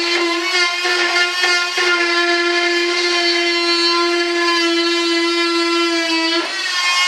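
Small handheld electric cutter running at a steady high pitch while trimming the edge of a fiberglass lay-up. Near the end its pitch falls as it winds down after being switched off.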